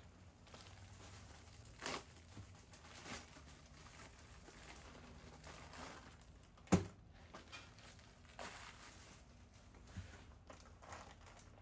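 Faint rustling and crinkling of plastic packaging as bagged bolts and bumper hardware are handled, with a few light clicks and one sharper click about seven seconds in.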